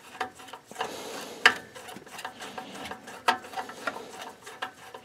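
Screwdriver turning a screw into a Riello oil burner's metal housing: a run of irregular small metallic clicks and scrapes, the sharpest about a second and a half in and again after three seconds.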